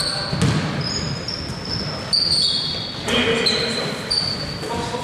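A basketball being dribbled on an indoor court, the bounces thudding, while sneakers on the floor give many short, high squeaks.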